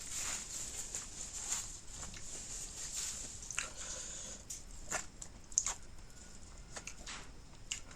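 Close-miked eating sounds: wet chewing and lip smacks, with irregular short clicks from the mouth.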